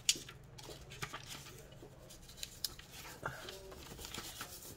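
Paper crafting at a table: scattered light clicks and taps as paper pieces are handled and placed.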